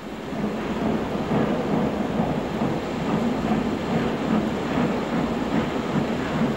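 LMS steam locomotive under way: a steady, dense rumble of the engine and train on the move, with no clear separate beats.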